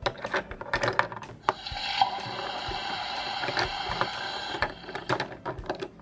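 Hard plastic toy dishes and utensils clicking and clattering against a toy kitchen sink. About a second and a half in, a steady electronic sound effect from the toy's built-in speaker plays for about three seconds, then the plastic clicks start again.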